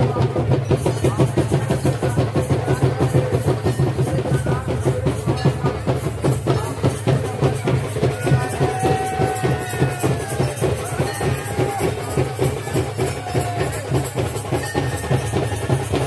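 Loud live traditional drumming, a fast steady beat of about four to five strokes a second.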